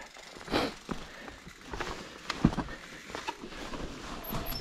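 Mountain bike clattering over rough, rocky trail: irregular knocks and rattles from the tyres and frame, a few strong enough to stand out.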